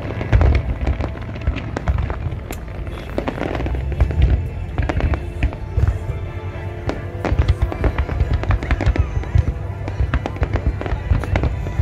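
Aerial fireworks display going off continuously: a dense run of booms and rapid bangs from bursting shells, with music playing along with the show.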